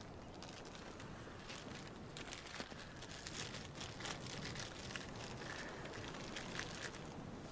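Small clear plastic bag crinkling as it is handled and opened between the fingers, a dense run of crackles through the middle, over a low steady background hiss.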